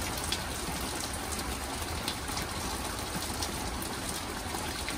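Steady thunderstorm noise: an even hiss of rain and wind, with a low wind rumble on the microphone.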